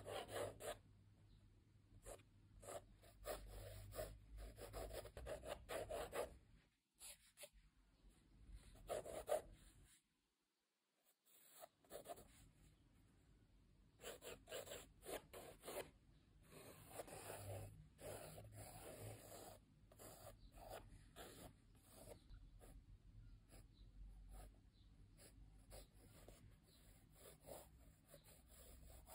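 Faint scratching of a coloured pencil across sketchbook paper in quick, repeated short strokes, stopping for about two seconds around ten seconds in.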